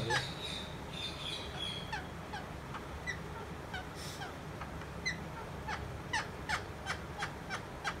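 Pet rose-ringed parakeet giving a string of short, soft chirps that fall in pitch, coming faster and a little louder in the last few seconds.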